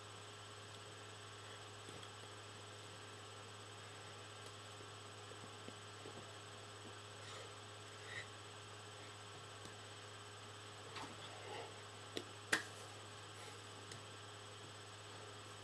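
Low, steady electrical hum, with a few faint clicks and taps scattered through and one sharper click about three seconds before the end.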